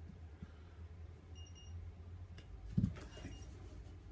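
Battery charger beeping a quick pair of short, high beeps about a second and a half in, its signal that the batteries are fully charged. A single knock near three seconds in is the loudest sound, over a steady low hum.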